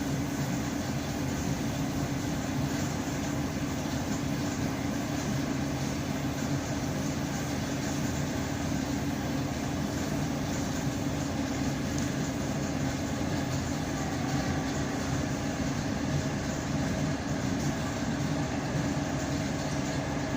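ED9M suburban electric train running at speed, heard from inside the carriage: a steady rumble of wheels and running gear with no distinct rail-joint clicks.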